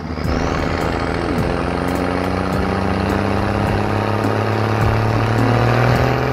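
Large truck engine running steadily, a low even drone with a strong pitched hum.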